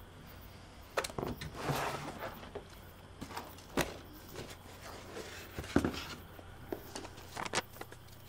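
Irregular light clicks and knocks with some rustling, as small things are handled and moved about by hand, over a faint steady room hum.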